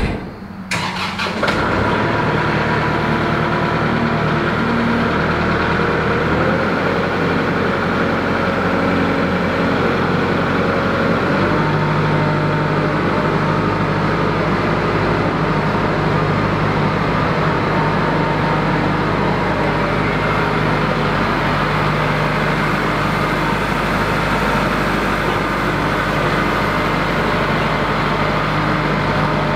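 Kubota MX 5400 tractor's four-cylinder diesel engine running steadily under work while grading. It changes engine speed twice in the first half, then holds steady.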